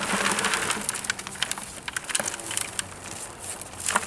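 Dense crackling and snapping of a peanut plant's roots and dry stems being handled, with a sharper snap near the end.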